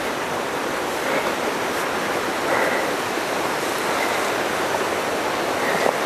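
Waterfall's running water: a steady, even rushing hiss.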